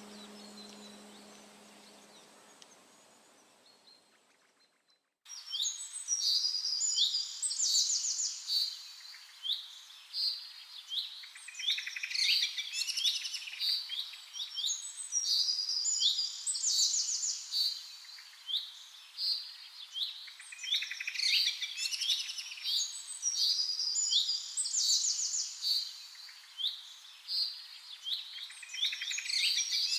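A low ringing tone fades away over the first few seconds. About five seconds in, a chorus of birds starts abruptly: many rapid, high-pitched chirps and trills, one after another.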